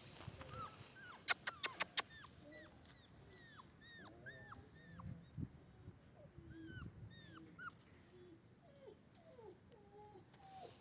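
Central Asian Shepherd puppies whimpering, a long run of short high cries that each fall in pitch, with some lower whines later on. About a second in there is a quick run of loud sharp clicks.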